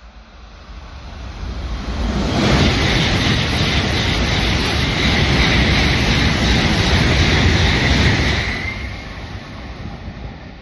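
N700-series Tokaido Shinkansen bullet train passing through the station at high speed without stopping. A rush of air and wheel noise builds over about two seconds, holds loud for about six seconds as the cars stream past, then fades, with a faint tone falling in pitch as the train recedes.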